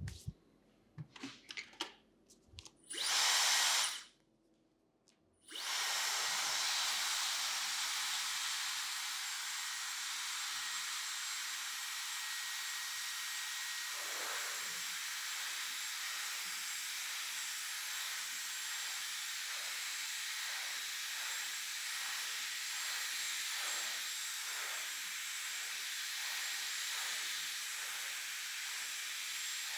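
Handheld hair dryer blowing: a few clicks, a burst of about a second, a pause, then a steady airy hiss from about five seconds in. From about the middle on, faint regular pulses run under the hiss.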